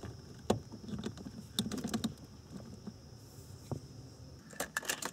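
Small plastic clicks and knocks of a scan tool's cable plug being pushed into the car's diagnostic connector under the dashboard and handled, with a quick run of clicks near the end.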